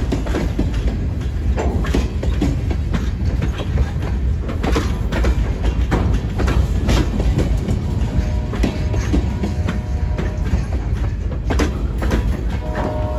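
Freight train of loaded centerbeam lumber flatcars rolling past, with a steady low rumble and the wheels clicking over rail joints. A held chord, a distant locomotive horn, sounds twice in the second half.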